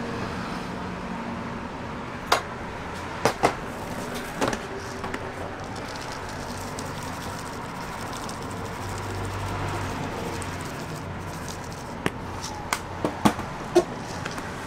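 Sharp, scattered clicks and taps of utensils during crepe making, a few about two to four seconds in and a quick cluster near the end, over a steady background hum.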